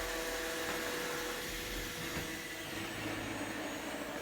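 Roomba robot vacuum running steadily, an even whirring with a faint steady whine.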